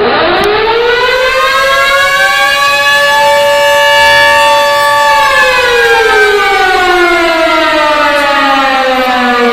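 Simulated tornado warning siren from the Air Raid Siren app, sounding the warning signal. It starts suddenly and winds up to a high pitch, holds a steady tone for a few seconds, then slowly winds down.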